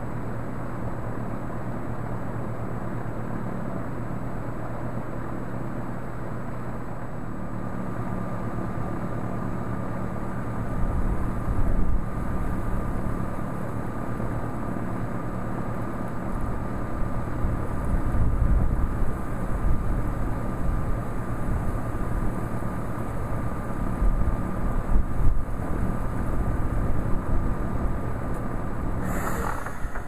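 A 2010 Tempstar 3-ton heat pump outdoor unit running in heat: a steady compressor and fan hum. A second hum tone joins about 7 seconds in and a thin high whine about 11 seconds in, with uneven low rumbling and a brief rushing noise just before the end.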